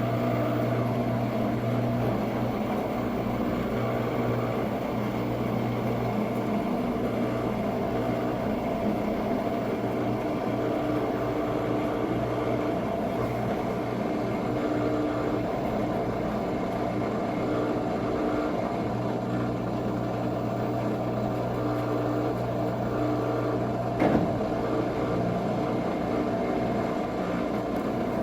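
Washing machine's drain pump humming steadily as it pumps out the wash water before the spin. There is a single short knock near the end.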